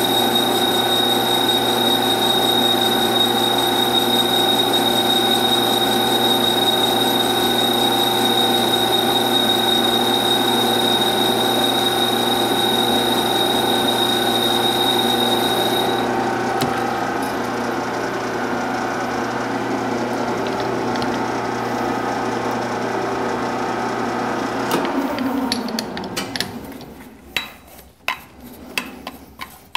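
Metal lathe running with a boring bar taking a light finishing cut inside a steel DOM tube held in a 4-jaw chuck: a steady hum with a high whine. The whine stops about halfway through, and with a few seconds left the lathe runs down and stops. A bristle brush then scratches and clicks against the chuck, clearing chips.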